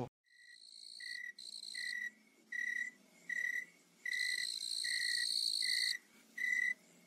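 Crickets chirping: one short note repeating evenly about every three quarters of a second, with a higher trill coming in short bursts and one longer stretch in the middle.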